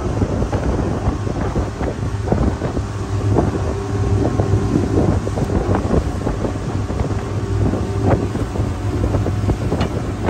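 Wind buffeting the microphone on an open boat at sea: a loud, steady low rumble with scattered small knocks.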